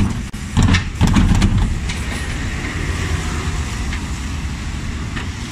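Dennis Elite 6 refuse lorry running with a steady low rumble, with a burst of loud clattering knocks about a second in.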